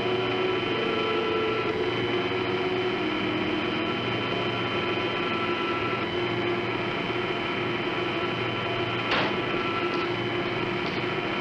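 Steady mechanical hum of heavy machinery in a pump room, several held tones over an even rushing noise, with a single sharp click about nine seconds in.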